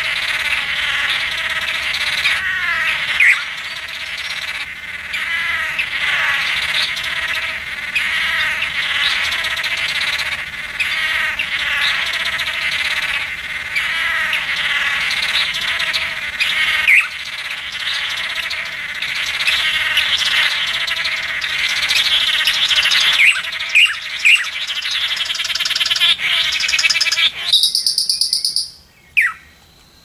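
A group of male Chiroxiphia manakins calling continuously during their cooperative cartwheel display: a dense chorus of buzzy, nasal calls repeated in overlapping runs. Near the end the chorus stops, and a high, fast buzzing trill is followed by a falling whistle.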